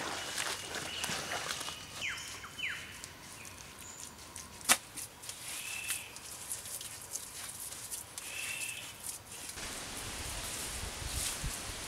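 Bare hands scraping, scooping and pressing wet mud, with soft handling thuds as it is smoothed onto a mud wall near the end. Short bird chirps call a few times, and one sharp click a little before halfway is the loudest sound.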